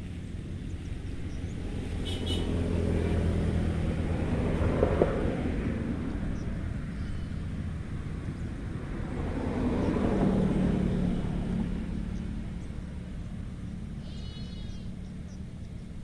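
Two vehicles pass one after the other over a steady low engine hum, each swelling and then fading; the first is loudest about five seconds in and the second about ten seconds in. A short, high animal call sounds near the end.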